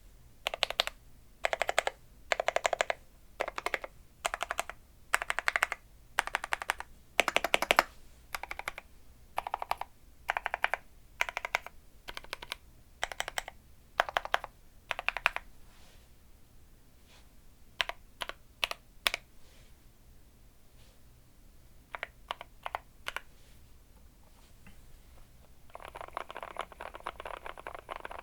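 Keystrokes on a custom GMMK Pro mechanical keyboard with lubed Gateron Black Ink V2 linear switches on a polycarbonate plate with PE foam. Short bursts of key clicks come about once a second, then a few single presses, and near the end rapid continuous typing across the home row.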